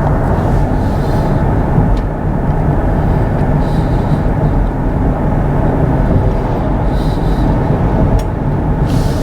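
Steady road and tyre noise inside the cabin of a moving Kia EV6 electric car, with no engine note.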